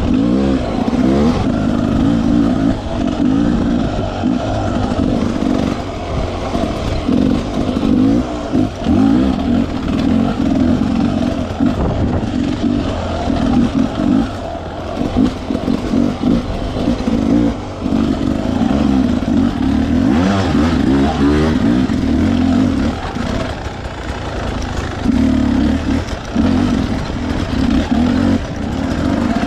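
Enduro dirt bike engine being ridden hard on a trail, revving up and down steadily. The throttle is chopped briefly every few seconds, the way it is between corners and obstacles.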